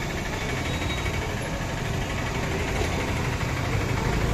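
Steady running of motor-vehicle engines: a continuous low rumble with no distinct knocks or changes.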